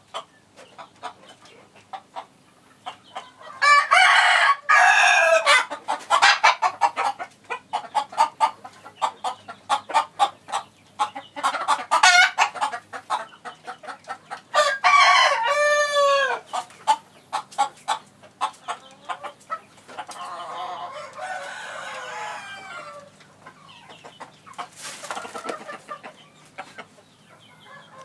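Rooster crowing several times, the loudest crows a few seconds in and about halfway through, with rapid short clucks between them.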